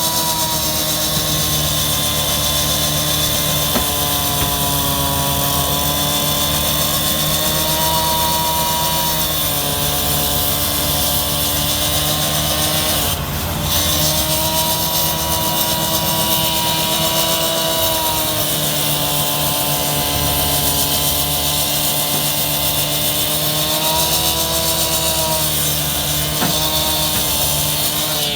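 Concrete saw running steadily as it cuts open a cracked concrete pavement joint. Its pitch wavers a little and dips briefly about halfway through.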